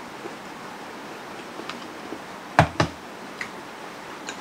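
Two sharp knocks close together about two and a half seconds in, from a glass dipping bowl being set down on a wooden table. A few faint small clicks come before and after them.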